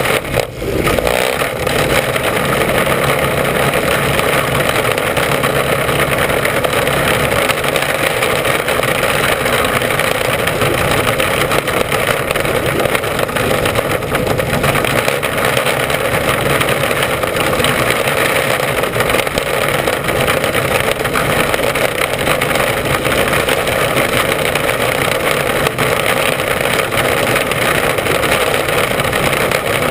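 Mini Sprint race car's engine running hard under racing load, heard on board the car, loud and steady throughout with a brief dip about half a second in.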